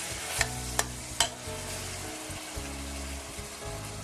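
Meat and tomato sauce sizzling in oil in a saucepan while being stirred, with a utensil knocking sharply against the pot three times in the first second or so.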